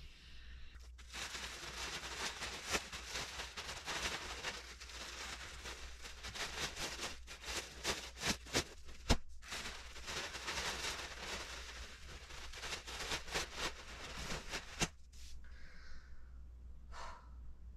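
Plastic garment bags and clothing rustling and crinkling as they are handled and sorted, with many small crackles and one sharp knock about nine seconds in. It goes quieter near the end.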